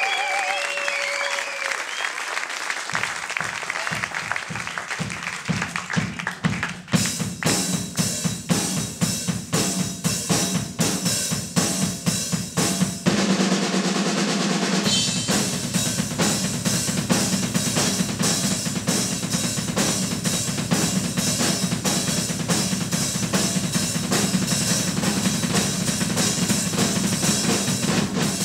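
Live drum kit playing a fast, driving rhythm of kick and snare strokes, several a second. Cymbals come in about seven seconds in, and from about halfway a steady cymbal wash sits over the beat.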